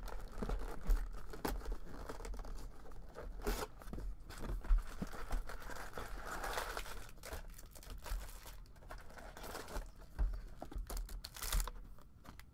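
Trading-card packaging being opened and handled by hand: crinkling and tearing of wrappers with scattered clicks and light knocks of cardboard.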